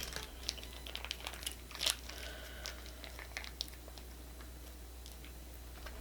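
Crunching and crackling of a hard-shell Taco Bell taco being bitten and chewed close to the microphone: a scatter of sharp crisp snaps over the first few seconds, then only faint chewing clicks.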